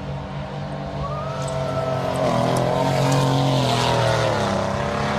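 A car engine revs hard during a burnout, climbing about two seconds in, holding high, then dropping back near the end. Spinning rear tyres squeal and hiss against the pavement as they smoke.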